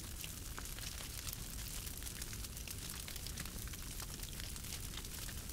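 Wood campfire burning: a steady hiss with frequent small crackles and pops from the logs and embers.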